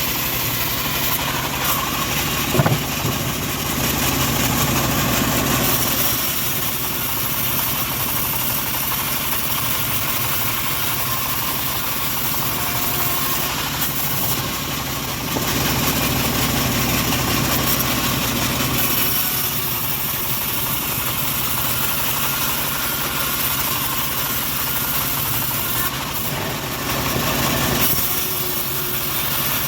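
The engine of a homemade bandsaw mill running steadily while it saws a teak log, swelling in level a few times. One sharp knock about two and a half seconds in.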